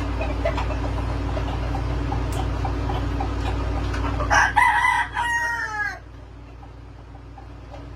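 A rooster crowing once, a long call that falls in pitch at its end, over a steady low rumble that cuts off as the crow ends.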